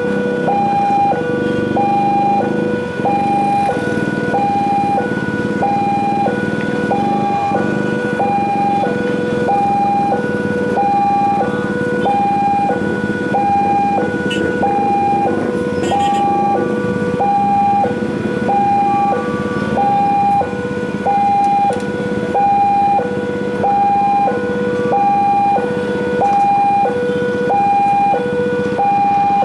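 Railway level-crossing warning alarm sounding a two-tone electronic chime, alternating high and low about once a second without a break. Beneath it a diesel locomotive's engine runs steadily as the train approaches.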